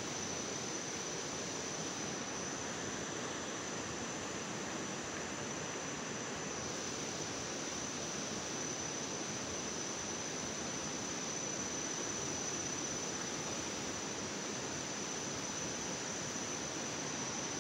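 Steady woodland ambience: an even rushing noise that does not change, with a constant high-pitched whine held over it.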